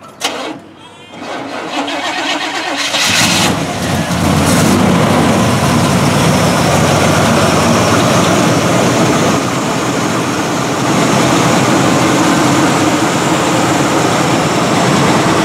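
1979 Chevrolet K10's 400 small-block V8 cranking on the starter, then catching about three seconds in and running steadily.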